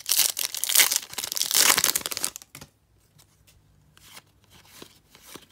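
Foil wrapper of a Topps trading card pack crinkling and tearing as it is ripped open, loud for about the first two and a half seconds. After that come soft clicks and rustles of cards being slid through the hands.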